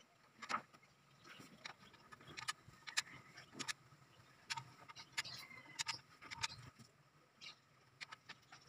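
Faint, scattered metallic clicks and clinks of a wrench and the fuel injection pipe fittings being worked on an open diesel cylinder head.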